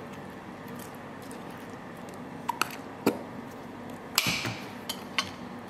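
Table knife clicking and scraping against a plate and romaine lettuce leaves while mayonnaise and mustard are spread on them: a few short, scattered clicks and clinks, the loudest a little past the middle, over a faint steady hum.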